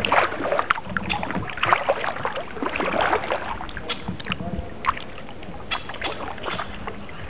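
Kayak paddle strokes splashing in the water, with drips and a few light knocks; the splashing eases off about halfway through.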